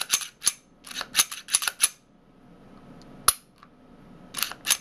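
Kahr CW9 pistol being worked by hand just after reassembly: a quick run of sharp metallic clicks in the first two seconds, one more click about three seconds in, and two near the end.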